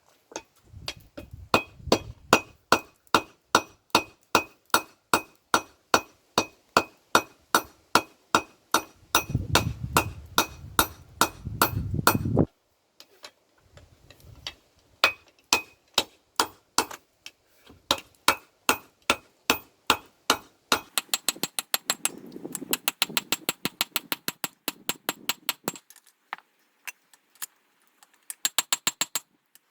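Hand hammer striking hot mild steel on an anvil, each blow ringing, at about two a second, with a stretch of faster, lighter blows later on and a few short pauses. A low rumbling noise runs under the blows twice.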